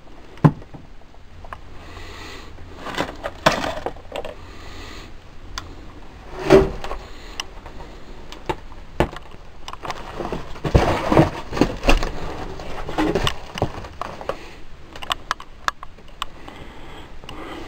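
Irregular knocks, clicks and light clatter in a small room, like old store items and shelving being handled and walked among. There is a sharp knock about half a second in, a heavier thud around six and a half seconds, and a run of knocks between about ten and thirteen seconds.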